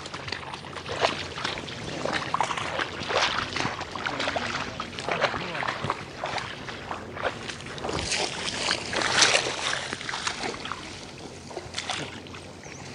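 Footsteps in boots splashing and squelching through shallow marsh water and wet grass, an irregular run of steps.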